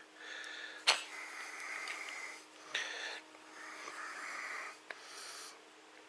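A man's wheezy breathing in several drawn-out breaths as he strains, with a faint whistle in the breath, and three sharp metal clicks from the parts he is forcing into a small wheel hub by hand, the loudest about a second in.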